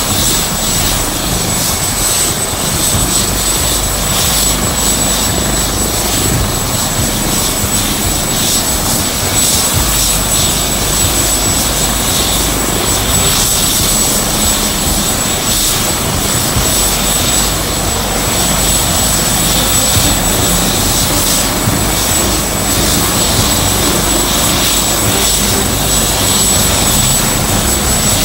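AgustaWestland AW139 helicopter running on the ground with its five-bladed main rotor turning: the steady sound of its twin Pratt & Whitney PT6C-67C turboshafts and rotor, with a thin high turbine whine over it.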